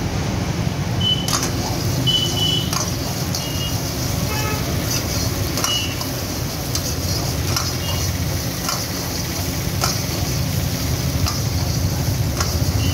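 Chopped onion sizzling in hot oil in a steel wok over a gas burner's steady low roar, with a metal ladle scraping and knocking against the wok about every second or so.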